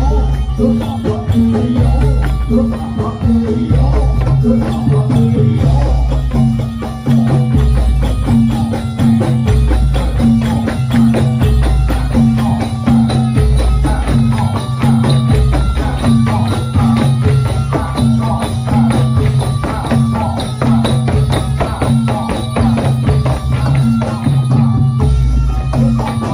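Loud folk dance music with fast jingling percussion and a deep drum beat about every two seconds, accompanying the dancers.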